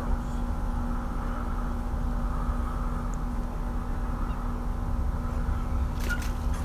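Steady low rumble with a constant humming tone under it, and a few faint clicks about six seconds in.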